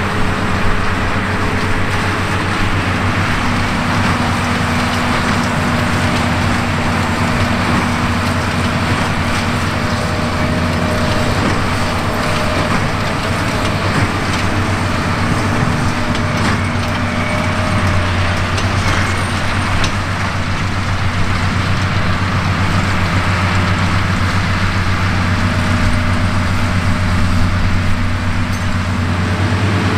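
Fendt tractor diesel engines running steadily under field load, with the noise of hay machinery working: a belt merger, and around the middle a big square baler.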